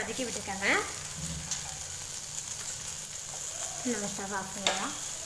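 Okra pieces sizzling steadily in hot oil in an aluminium pan, stirred now and then with a steel spoon; the okra is about half cooked.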